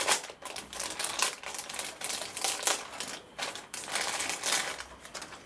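Rustling and clicking of small plastic kit parts and packaging being handled on a workbench: a dense, irregular run of light clicks and crinkles.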